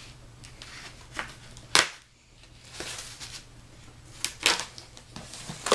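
A heavily taped comic mailer being worked open by hand: crinkling and scraping of tape and cardboard, with a sharp rip about two seconds in and two more quick snaps near the end.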